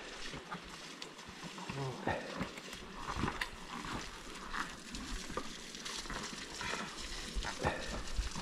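Quiet outdoor ambience: faint crackling with scattered small clicks and knocks, and no engine running.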